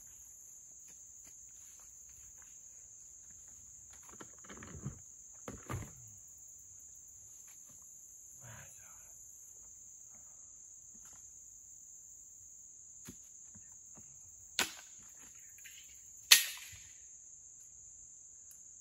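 Insects droning in the woods, a steady high-pitched buzz throughout. Over it, camp gear is handled at a cooler: some rustling and clattering, then two sharp knocks near the end, the second the loudest with a short ring.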